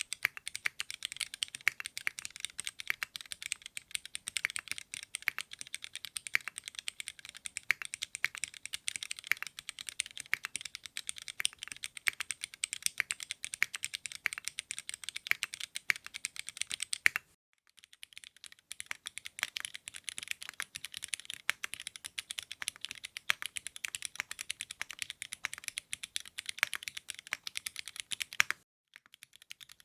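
Fast, continuous typing on a custom mechanical keyboard, a dense stream of key clicks. It stops briefly about two-thirds of the way in and again just before the end.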